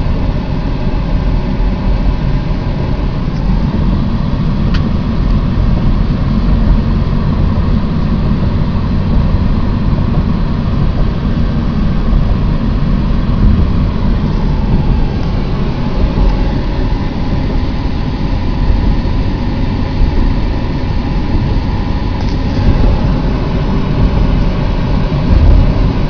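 Steady low rumble of a car driving at road speed, heard from inside the cabin: engine and tyre noise.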